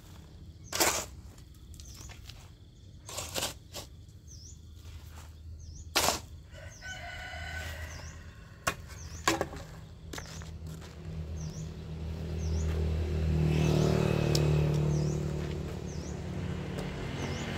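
A steel shovel scraping into a heap of soil and tipping it into a wheelbarrow, with several sharp scrapes in the first half. A rooster crows briefly about seven seconds in, and a low engine hum swells in the second half, loudest about three-quarters of the way through.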